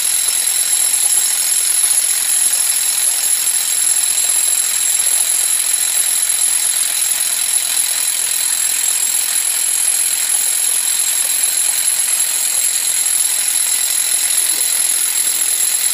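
Corded electric hammer drill with a long masonry bit boring into rock, running steadily with a high-pitched whine.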